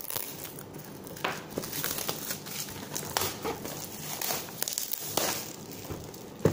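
Thin plastic shrink wrap crinkling and crackling irregularly as it is torn and peeled off a cardboard box. There is a sharp click near the end.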